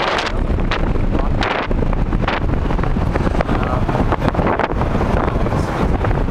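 Wind buffeting the microphone of a camera on a moving car, in irregular gusts over a steady low rumble from the car on the road.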